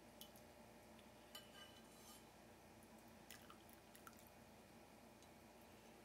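Near silence: quiet room tone with a few faint, short ticks and small plinks.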